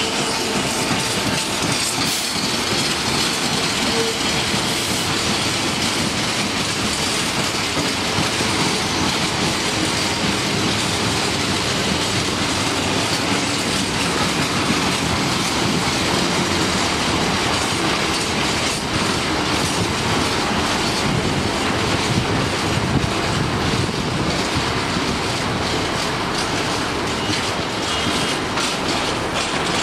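Freight train of empty flat wagons rolling steadily past behind a Class 66 diesel locomotive, steel wheels clattering over the rail joints, the clicks growing sharper near the end.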